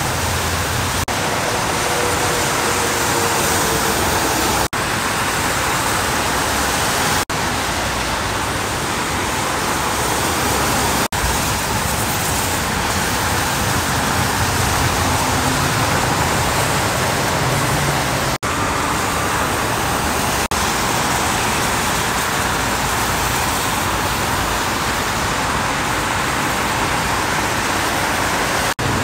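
Steady hiss of freeway traffic on rain-soaked pavement: tyres of passing cars and trucks spraying water, broken by several brief dropouts.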